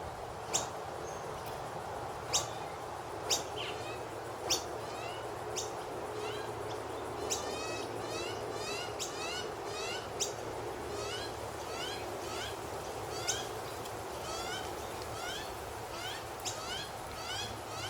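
Noisy miner calling: sharp, loud calls roughly once a second, then from about seven seconds in a long run of quick rising chirps, several a second.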